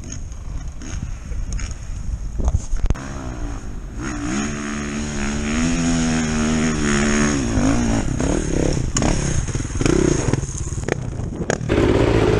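Enduro motorcycle engine working hard up a steep dirt climb. It grows louder about four seconds in, and its pitch rises and falls as the rider works the throttle. Near the end it changes suddenly to a louder, steadier engine close by.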